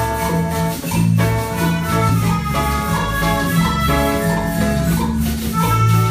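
A school ensemble playing a Latin pop tune: many melodicas sounding a melody in held notes together, over electric bass, drum kit and hand drums, with small xylophones struck with mallets.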